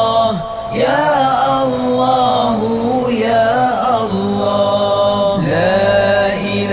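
Zikir: a voice slowly chanting a repeated Arabic devotional phrase to a simple melody, in sustained phrases of about two seconds each with brief breaks between them.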